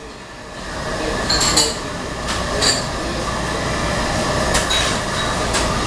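Upturned stainless steel bowl clinking and scraping against the bars of a tabletop BBQ grill a handful of times as live eel thrashes underneath it, over a steady hiss.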